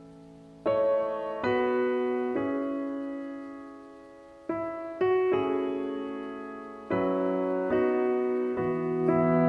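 Background piano music: slow chords struck one after another, each left to ring and fade before the next.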